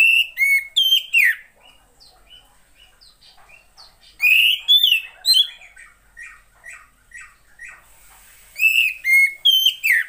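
Female oriental magpie-robin calling: three loud bursts of four or five sharp notes, about four seconds apart, with softer short notes in between.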